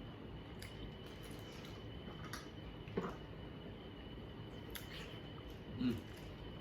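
Eating sounds of a seafood meal: wet chewing and squishing with small clicks as the food is handled, and two louder brief sounds, about three seconds in and near the end.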